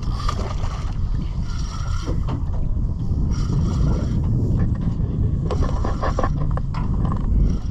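Wind buffeting the microphone over the low wash of water against a small fishing boat at sea, steady throughout. A quick run of clicks and knocks comes about five to seven seconds in.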